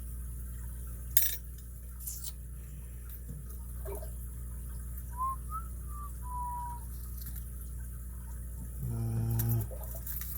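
Lock pick and tensioner working in the keyway of an all-brass Eagle padlock: a sharp metallic click about a second in, then a few lighter ticks. Midway comes a faint, thin whistle-like tone, and near the end a short low hum.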